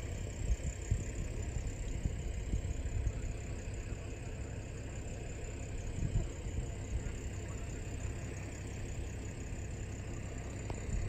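Safari vehicle's engine idling steadily, a low rumble.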